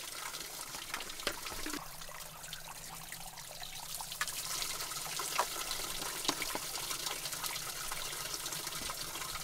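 A small mountain spring trickling and splashing into a plastic water bottle as it is filled, with scattered drips and light ticks over a steady running-water hiss.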